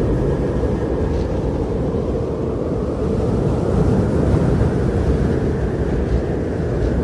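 Strong blizzard wind blowing steadily as a deep, low rush with slow swells in strength.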